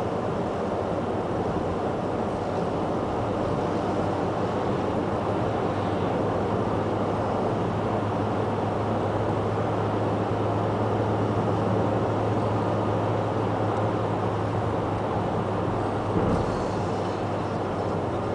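A car driving through a road tunnel, heard from inside the cabin: steady engine and tyre noise with a constant low hum. A brief knock about sixteen seconds in.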